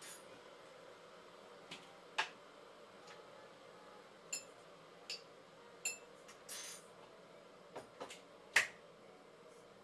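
Irregular sharp clicks and light clinks of small hard objects being handled, about ten of them, several with a brief ringing tone, and one short scrape past the middle. The loudest click comes near the end.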